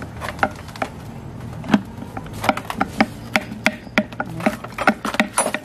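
Metal clicking and knocking as a reverse gearbox is worked onto a Honda C-series motorcycle engine's output shaft against its crankcase. Irregular sharp clicks several times a second: the gearbox is stiff to slide on.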